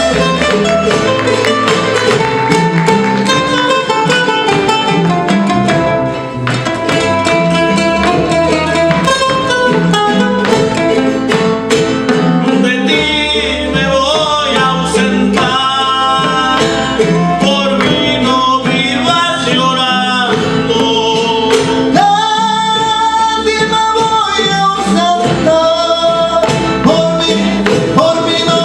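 Son jarocho ensemble playing live: requinto and jaranas plucked and strummed over a bass, with singing coming in about halfway through.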